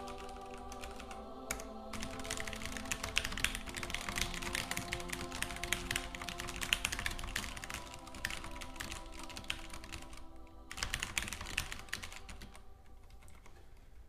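Fast typing on a Durgod Taurus K320 mechanical keyboard with Cherry MX Red switches: a dense, continuous clatter of keystrokes with a short break near the end, over background music.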